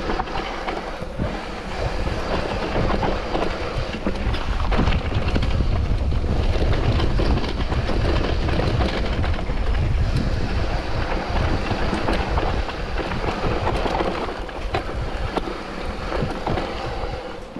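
Mountain bike descending a rough trail: continuous rumble of tyres over dirt and stones with rapid clattering from the bike, and wind buffeting the microphone.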